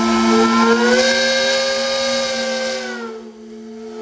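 Steam whistle on a small steam road locomotive blowing one long blast, several tones at once like a chord, over a hiss of steam. The upper notes rise a little about a second in, then sag and fade out about three seconds in.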